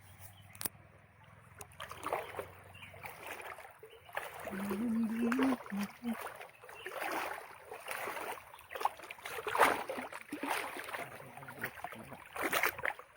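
Water splashing and sloshing in irregular strokes, with a short low humming tone about four and a half seconds in.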